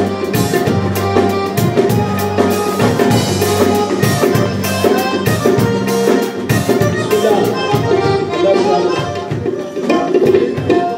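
Live South Asian folk music: harmonium chords with tabla strokes and an electric bass line.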